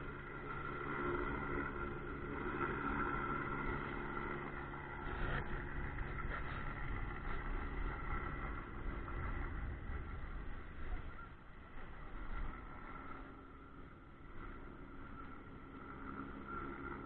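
Steady engine hum with a low rumble, typical of a boat engine running in a harbour; it eases off somewhat after about eleven seconds.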